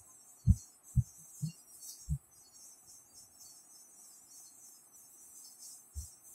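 A whiteboard being wiped with a handheld eraser: short dull thumps as the eraser and board knock, four in the first two seconds and one more near the end, over a faint high hiss.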